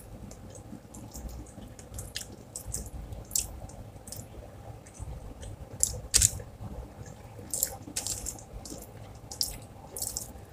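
Close-up eating sounds: a person chewing a mouthful of rice and fried salmon, with scattered soft wet smacks and clicks of the lips and mouth.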